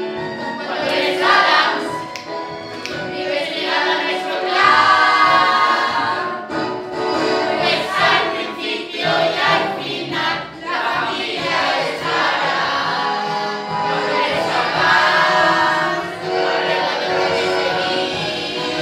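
A group of teenage performers singing together in chorus, with instrumental accompaniment.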